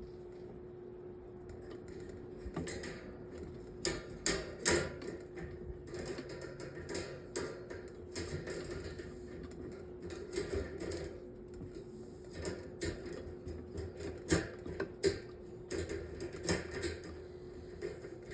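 Irregular metal clicks, knocks and rattles as a metal table fan's parts are handled and fitted together, starting a couple of seconds in, over a steady hum.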